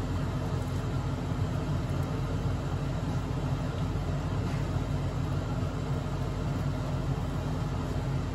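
A kitchen fan running with a steady low hum and a faint even tone, no sizzle yet from the heating oil.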